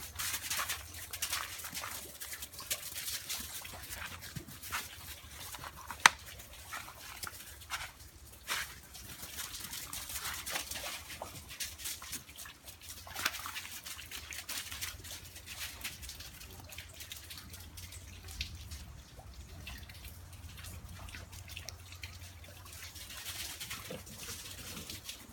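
Irregular patter of dripping water and small ticks around a hail-covered yard, with one sharp click about six seconds in.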